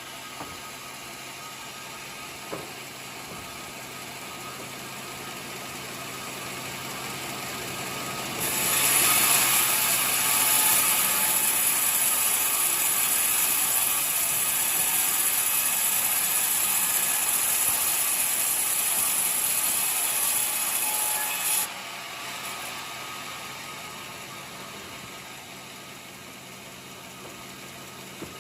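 Portable sawmill running, its saw cutting through a coconut log: a steady engine hum, then a much louder hissing cut from about eight seconds in that ends suddenly near twenty-two seconds as the blade leaves the wood, with the machine running on more quietly after.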